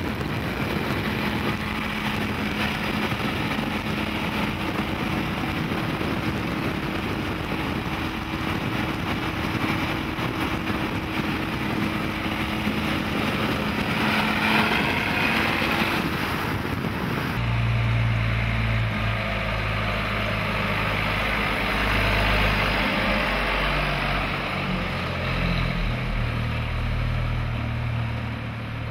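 Wind and road noise from pacing a vehicle at highway speed, with a steady engine drone under it. About 17 seconds in, the sound cuts to the deep, steady low rumble of the truck's Cummins turbo-diesel inline-six moving at low speed.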